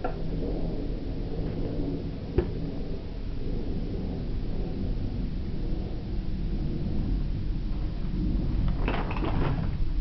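Steady low rumble of room noise, with one sharp click about two and a half seconds in and a short burst of noise near the end.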